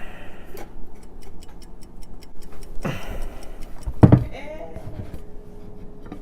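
A metal flan pan and plate handled while the flan is turned over: a run of light clicks, a short scrape about three seconds in, then a sharp knock about four seconds in, the loudest sound.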